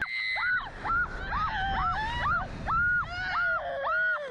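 Two women shrieking in short, high-pitched bursts, about two a second, as they are flung on a slingshot ride; a second, lower voice cries along under the higher shrieks in the second half.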